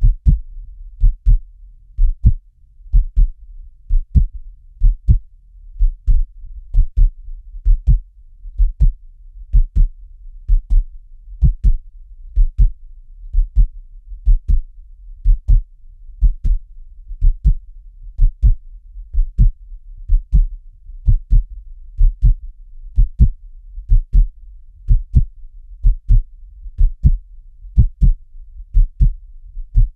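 Steady heartbeat, a low double thump (lub-dub) repeating evenly about once a second, over a faint low rumble.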